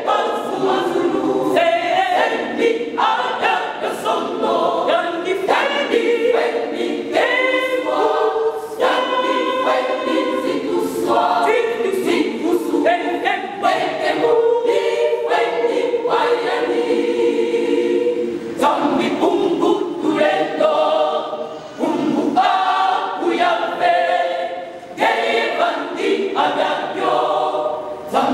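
Women's church choir singing a cappella.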